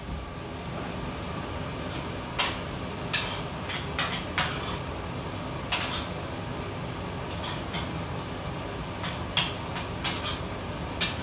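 A spoon clinking and scraping against a frying pan as beef steak is stirred on a gas stove, in a dozen or so irregular sharp taps, over a steady background hiss.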